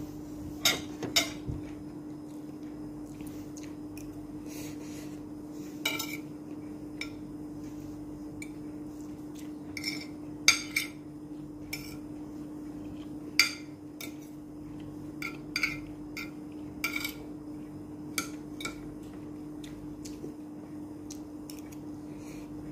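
Metal spoon and fork clinking and scraping on a ceramic plate in scattered sharp clicks, over a steady low hum.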